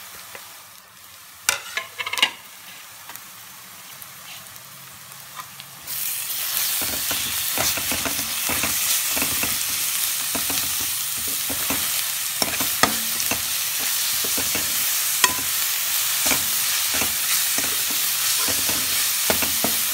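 Chopped onions, green chillies and ginger-garlic paste frying in desi ghee in a kadhai, stirred with a steel spoon. The sizzle is quiet at first, with two sharp knocks of the spoon. About six seconds in it gets suddenly much louder and carries on as a strong sizzle with constant scraping clicks of the spoon.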